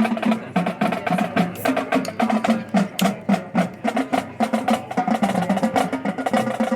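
Marching band playing a percussion-heavy passage, with quick struck pitched notes over drums.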